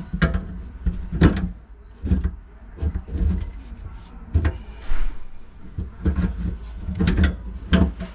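A series of irregular knocks and clunks from work on a garbage disposal being fitted under a kitchen sink, the unit and parts knocking against the mounting and cabinet.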